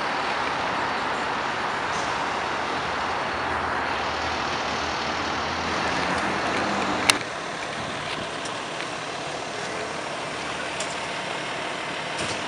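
Fire truck diesel engines and city street traffic running steadily. About seven seconds in there is a sharp click, after which the traffic sound is quieter.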